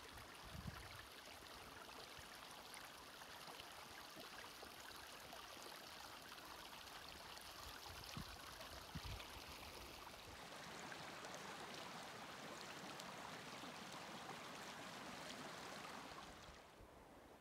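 Faint steady outdoor hiss with a few low thumps. About ten seconds in it gives way to the fuller babble of a small mountain creek running over rocks, which drops away near the end.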